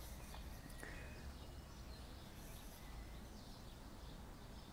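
Quiet outdoor background: a steady low rumble of ambient noise with a few faint, distant bird chirps.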